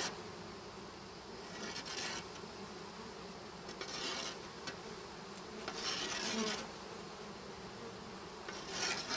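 A mass of package honeybees buzzing in a steady hum, with several brief rustling scrapes roughly every two seconds.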